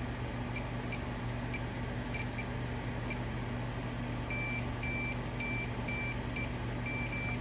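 Multimeter continuity beeper: a few brief blips, then from about four seconds in a series of longer beeps, each about half a second, as the probes touch a circuit-board trace, showing the trace is connected. A steady low hum runs underneath.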